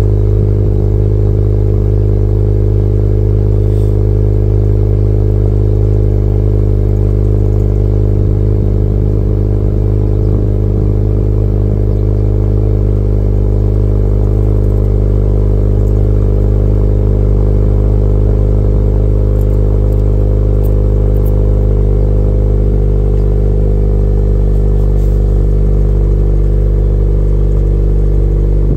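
A 10th-generation Honda Accord's four-cylinder engine idling steadily through a Thermal R&D 3-inch aftermarket exhaust with quad tips, heard at the tailpipes as a low, even drone.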